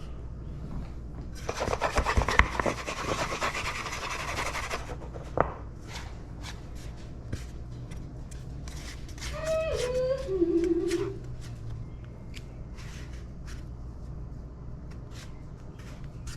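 Kitchen food-prep noises: about three seconds of scraping or rubbing, then scattered light clicks and taps, and a short squeak that drops in pitch about ten seconds in.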